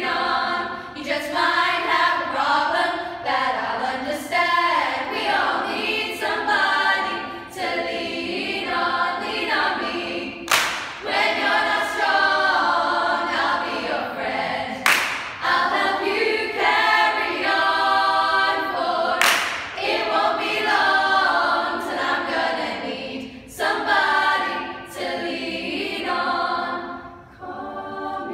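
Women's a cappella group singing in harmony without accompaniment, with a few sharp accents cutting through; the singing thins out near the end.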